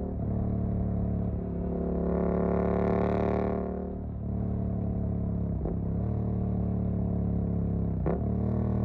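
Suzuki GSX-8S parallel-twin running through a Jeskap EVO aftermarket exhaust. It pulls harder and louder about two seconds in, backs off about four seconds in, then runs on steadily with two brief dips in the note.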